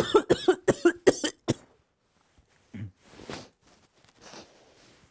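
A man coughing in a fast run of about seven harsh coughs, followed by a short throat sound and two soft breathy noises.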